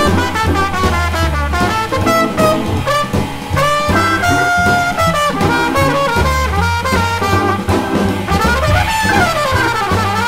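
Background music: brass-led jazz, with horns playing over a moving bass line.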